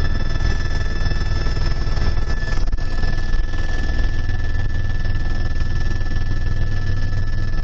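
Steady drone of a small aircraft's engine in flight: a loud low rumble with a constant high whine over it.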